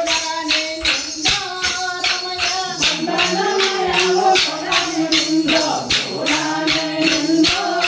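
Pairs of short wooden sticks clacked together in a steady beat of about three strikes a second for a folk stick dance, under a group of voices singing the dance song.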